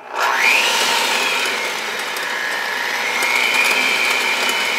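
Cuisinart seven-speed electric hand mixer switched on, its motor whine rising as it spins up and then running steadily. The beaters are churning an egg into mashed ripe bananas in a glass bowl.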